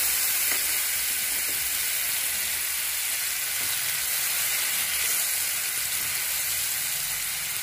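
Wet spice paste of ginger, cumin, turmeric and chilli powder sizzling steadily in hot oil in a non-stick kadai, just added to the oil and being fried, easing off slightly as it cooks. It is stirred with a silicone spatula.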